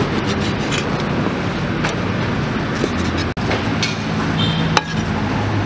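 Steady street traffic noise with a low engine hum. A few short, sharp knocks of a knife on a wooden cutting board come through.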